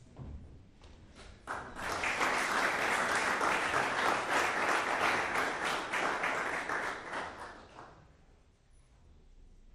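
Audience applauding, starting abruptly about a second and a half in and dying away a few seconds before the end.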